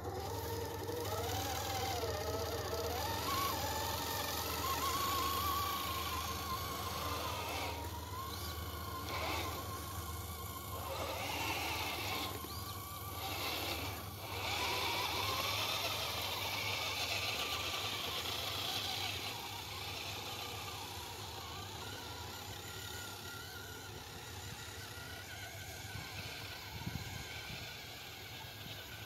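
Electric motors and geartrains of 1/10-scale RC rock crawlers whining as they climb through snow, the pitch wavering up and down with the throttle. The sound gets lower in the last third.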